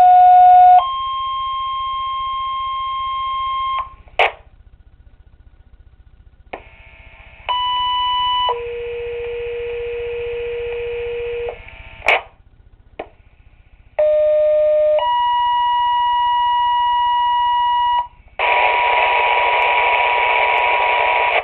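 Two-tone sequential fire-department paging tones over a Motorola Minitor II pager's speaker: three pages in a row, each a short first tone of about a second followed by a longer second tone of about three seconds at a different pitch. Short crashes of radio static come between pages as the transmission drops. On the last page the second tone gives way to a loud hiss with the tone still under it.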